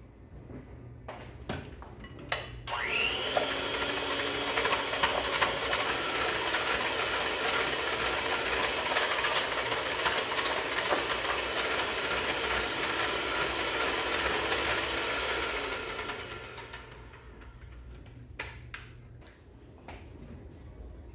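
Electric hand mixer starting with a rising whine about two and a half seconds in and running steadily for about thirteen seconds as its beaters whip a cream cheese, sour cream and sugar mixture in a glass bowl, then winding down and stopping. A few clicks come before it starts and a couple of knocks after it stops.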